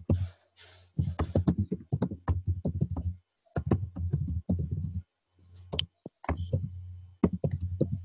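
Rapid keystrokes on a computer keyboard as a sentence is typed, in quick runs broken by short pauses, over a low hum.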